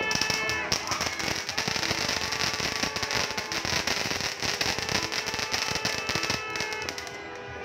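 Firecrackers going off on the street in a rapid, dense run of small sharp bangs that stops about seven seconds in. Music plays faintly underneath.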